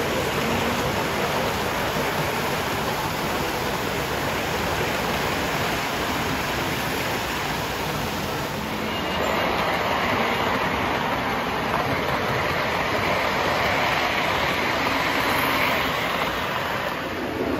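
Model trains running on a layout: a steady rumble of metal wheels on the track, getting louder about halfway through.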